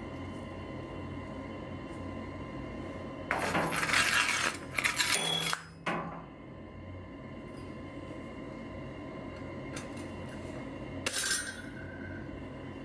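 Metal pieces clattering and scraping for a couple of seconds, then a single metallic clink that rings briefly near the end, over a steady background hum.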